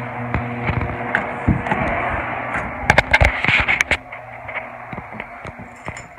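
Electric garage door opener running, a steady motor hum that fades out after a few seconds. A handful of sharp clacks come about three seconds in.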